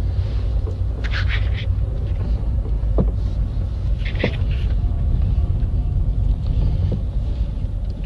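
Motor vehicle engine rumbling low and steady as it drives under its own power on a freshly replaced clutch, with two brief hisses about a second and about four seconds in.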